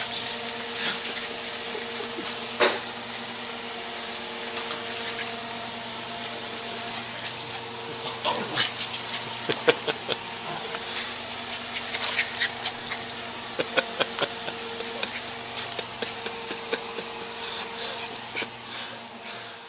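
Two small dogs playing and scuffling, with short yips and whimpers and scattered quick clicks and scuffles, more of them in the second half, over a steady electrical hum.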